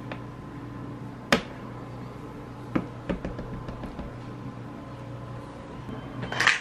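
A spatula scraping sticky nut butter into a plastic food processor bowl, with a few sharp knocks against the bowl, the loudest about a second in, and a louder rising rustle that cuts off suddenly at the end. A steady low hum runs underneath.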